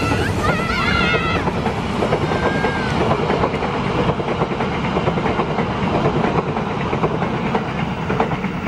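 A train passing close by: a steady, loud rumble of steel wheels on the rails with dense rapid clicking.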